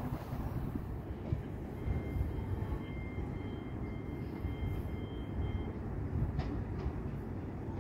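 Low, steady rumble of electric multiple-unit trains at a station platform, a Class 455 approaching in the distance beside a standing Class 377. A faint, repeated high beeping runs from about two seconds in to about six seconds in.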